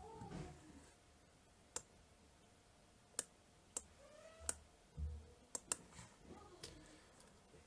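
A handful of short, sharp clicks at irregular intervals, about seven in all, in a quiet small room, with faint voice-like sounds at the start and about four seconds in.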